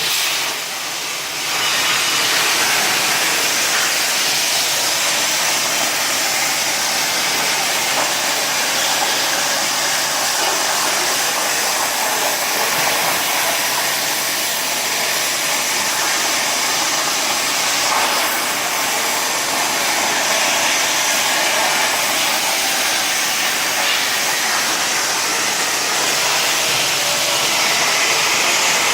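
CNC plasma torch cutting metal: a loud, steady hiss that dips briefly in the first second or so, then holds even.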